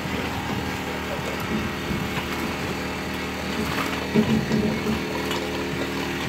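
An engine running steadily with a constant hum.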